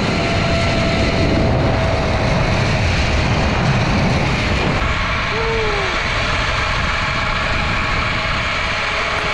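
Wind buffeting an action camera's microphone at speed on a zipline, mixed with the steady rolling whir of the trolley on the steel cable. A thin steady whine fades out in the first few seconds, and a short falling squeak comes about halfway through.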